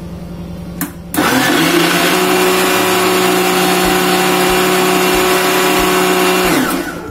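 A mixer-grinder's motor is switched on with a click about a second in and spins up. It runs steadily, churning butter with ice cubes and water to separate the butter from the water. Near the end it is switched off and winds down.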